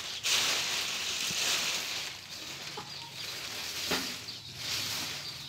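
Sheep feeding at a trough, rustling and munching through chopped fermented forage, with a short knock about four seconds in.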